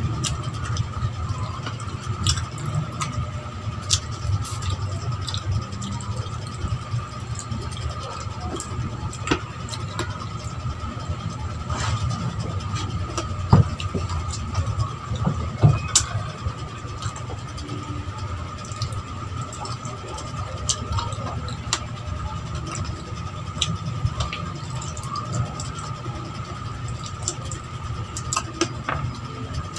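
Close mouth sounds of eating with the fingers: chewing, lip-smacking and finger-sucking, heard as scattered wet clicks. Under them runs a steady low hum with a thin steady whine.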